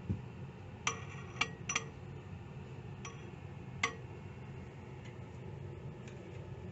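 A metal object clinking lightly against a drinking glass of water, about six small sharp ticks in the first four seconds, over a low steady hum.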